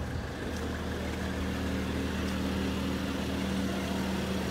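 Mercedes-AMG GLC 43 Coupé's twin-turbo V6 idling steadily with the car parked, heard from outside by its exhaust: a loud, even hum that neither rises nor falls.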